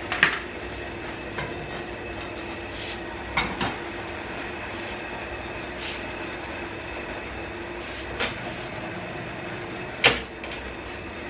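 Stainless steel cooking pot and its lid clanking on a gas hob's grate as the pot is set down and covered: a few short metal knocks, the loudest about ten seconds in, over a steady background hum with a faint high whine.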